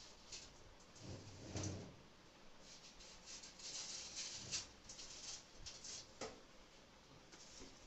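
Faint scraping and rustling of things being shifted under a metal trunk, with a soft knock about one and a half seconds in and a sharp click near six seconds.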